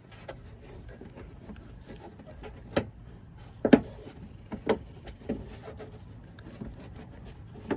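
Plastic retaining clips being pressed back into place, giving a series of sharp snaps roughly a second apart.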